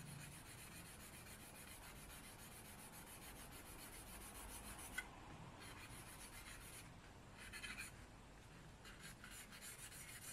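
Faint scratching of a charcoal stick on paper in short strokes, heard mostly in the second half, as a mid-grey tone is shaded in.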